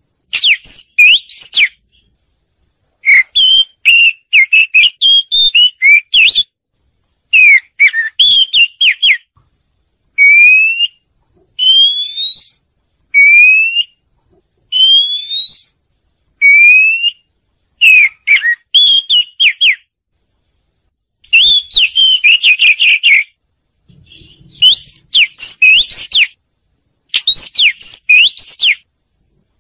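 Oriental magpie-robin song: loud phrases of varied whistles and quick chattering notes, separated by short silent gaps. Midway comes a run of five clear rising whistles. This is a song recording meant to lure other birds and stir them into singing.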